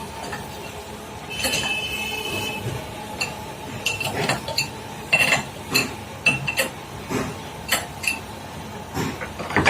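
Light metallic clinks and knocks, a dozen or so irregular strikes each with a brief ring, as tools or parts are handled around the stopped CNC router, over a faint steady workshop hum.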